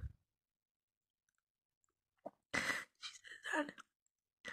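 A woman crying. After about two seconds of silence there is a sharp, breathy sob, then a wavering whimper, and another shaky breath near the end.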